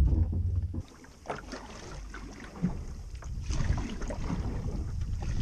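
A canoe being paddled: water splashing and dripping from the paddle strokes, with scattered light knocks against the hull. Wind buffets the microphone for the first second, then stops abruptly.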